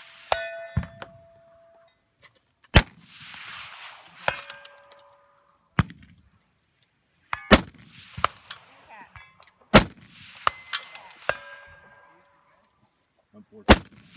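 Four precision rifle shots, each report followed by a fading echo. About a second and a half after most shots comes the ring of a distant steel target being hit.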